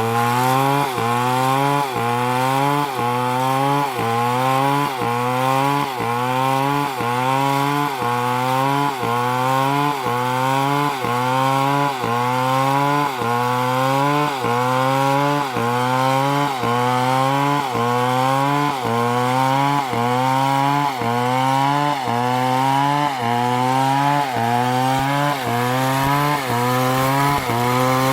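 Chainsaw running under load while cutting, its engine note rising and then dropping about once a second in an even rhythm.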